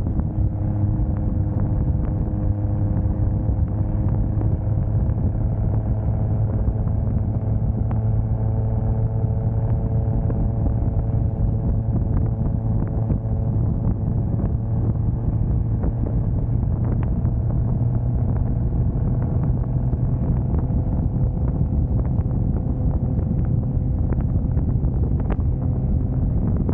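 Toyota Soarer's 2JZ single-turbo straight-six running at steady cruising revs, a constant low drone whose pitch drifts only slightly, over road and tyre noise.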